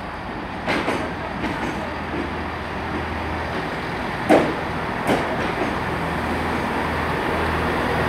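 Diesel engines of a Class 165 Turbo multiple unit running with a steady low hum that grows slowly louder, with a few sharp knocks, the loudest about four seconds in.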